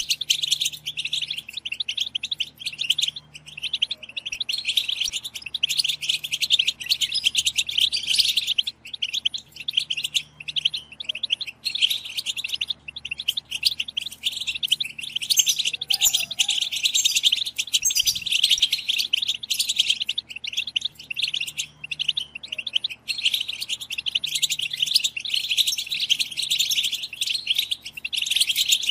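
A group of European goldfinches chattering together: dense, rapid, overlapping twittering calls that run on without a break. This is the goldfinch group chatter ("bitbita") played to excite caged goldfinches into song.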